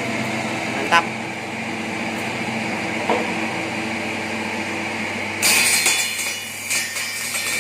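Bamboo skewer-cutting machine running with a steady motor hum and a sharp click about a second in. About five and a half seconds in, a much louder harsh rattling noise starts and continues.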